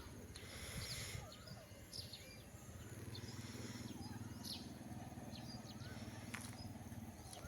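Outdoor ambience: scattered short bird chirps and brief rising calls, over a low steady hum that comes in about three seconds in.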